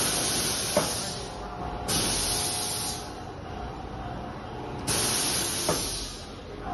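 Semi-automatic paper tray forming machine cycling: sudden bursts of compressed-air hiss from its pneumatic press, each fading over about a second, come in pairs about two seconds apart, with a single sharp knock between the two of each pair.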